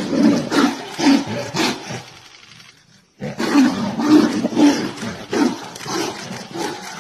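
Two tigers roaring at each other as they fight, in a rapid run of loud, short roars. The roaring breaks off for about half a second a little before three seconds in, then starts again.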